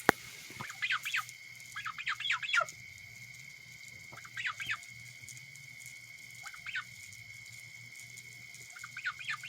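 Pet goose giving short, squeaky squawking calls in scattered little groups of several, with a sharp click at the very start.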